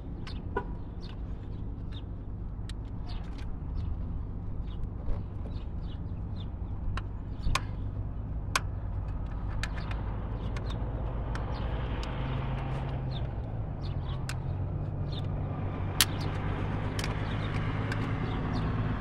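Scattered sharp clicks and taps of a screwdriver and hands working the twist-lock latches of a GM HEI distributor cap on an Oldsmobile 307 V8, one louder click coming near the end. A steady low engine hum runs underneath.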